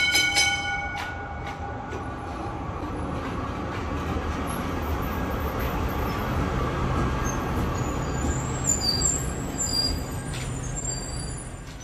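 Melbourne B2-class tram giving a short ringing warning signal as it pulls in, then rumbling past close by on its motors and wheels. Faint high wheel squeaks come in toward the end.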